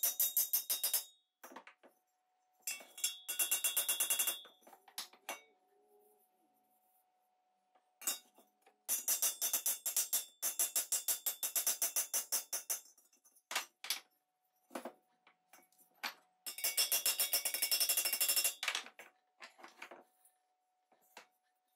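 A hammer rapidly tapping a punch against the rim of a Tilley floodlight projector's sheet-metal lamp body: several runs of quick ringing metallic taps, with pauses and a few single knocks between them.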